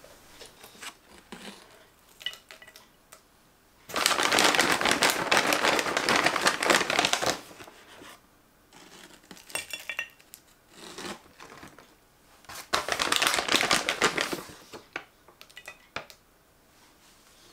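Crinkling and crackling in two long stretches, one of about three seconds and a shorter one near the end, with scattered small clicks and taps between.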